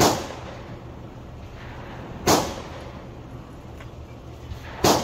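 Three gunshots about two and a half seconds apart, each a sharp crack with a short trailing echo: one right at the start, one a little past two seconds in, and one near the end.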